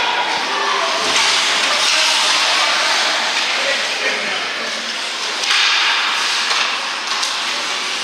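Ice hockey rink during play: skate blades scraping and carving across the ice, with the hissing scrape louder from about a second in, over a chatter of spectators' voices.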